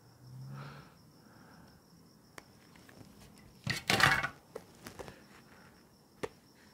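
A cricket trills steadily in the background. Scattered light clicks and taps run over it, with one loud rustling scrape about four seconds in as a hand rubs near a clip-on microphone. Laptop keys tap near the end.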